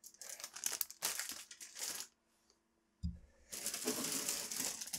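Clear plastic bags of plastic model-kit runners crinkling as they are handled. About three seconds in there is a short pause and then a soft thump, followed by more crinkling.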